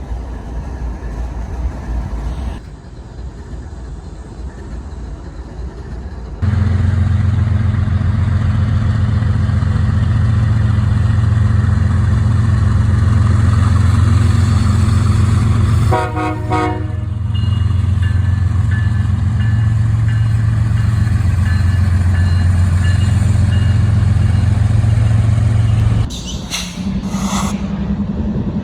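Diesel freight locomotives running with a loud, deep engine drone, with a short horn blast about halfway through. The sound cuts abruptly several times between different train passes.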